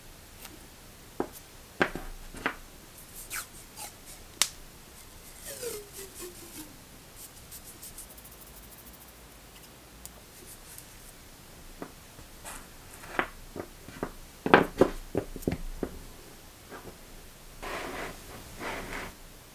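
Rolls of washi tape handled on a tabletop: scattered light clicks and taps as the rolls are picked up, pressed together and set down, with the loudest run of taps a little before three-quarters of the way through. About six seconds in, a short crackly peel as tape is lifted from a roll, and a soft paper rustle near the end.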